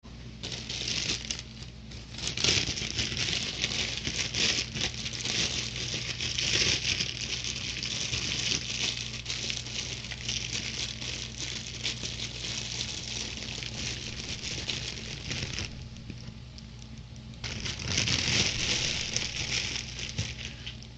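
Continuous crinkling and rustling of plastic, pausing for about two seconds near the three-quarter mark, over a low steady hum.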